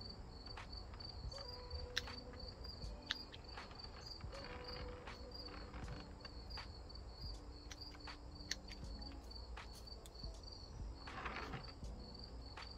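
Spring-loaded bonsai pruning shears snipping juniper shoots: sharp, irregular clicks every second or two, with a short rustle of foliage near the end. Insects chirp steadily in the background.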